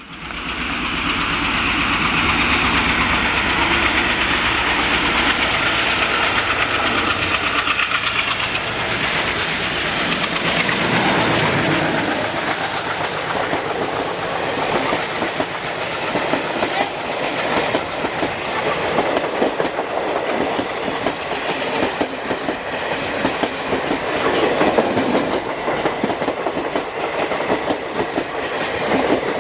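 Passing train: the locomotive goes by in the first several seconds, then the coaches roll past with a rapid, steady clatter of wheels over the rail joints.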